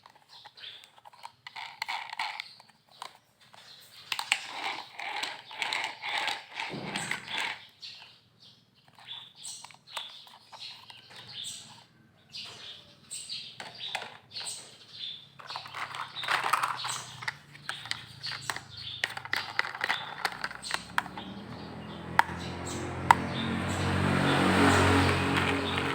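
Plastic toy vehicles being handled and knocked together, with many sharp clicks and rattles. Near the end a mechanical whirring builds up and grows louder.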